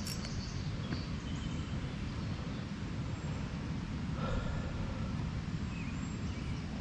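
Outdoor river ambience: a steady low rumble of wind noise with a few faint high chirps.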